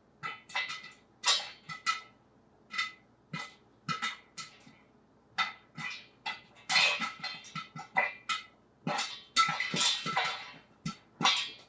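Popcorn kernels popping in a covered pot of hot oil on the stove: sharp, irregular pops a few per second, coming thick and fast in clusters in the second half as the batch reaches full popping.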